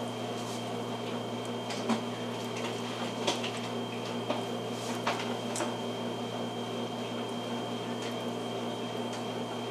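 A steady low hum with a thin high-pitched whine over it, broken by a few faint short clicks, the strongest about two and three seconds in.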